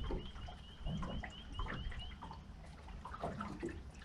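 Water splashing and scattered knocks as a hooked fish is played and brought in at the water's edge. A faint, high, short ticking chirp repeats about four times a second and stops about two seconds in.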